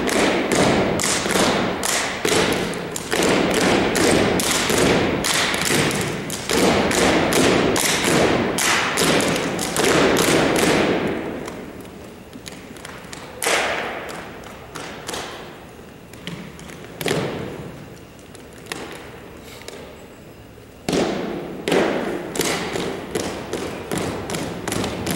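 Unarmed exhibition drill team's body percussion: rapid, rhythmic stomps and hand slaps ringing in a hardwood-floored gym. Dense for about the first eleven seconds, then only a few single thumps, until the rhythm picks up again near the end.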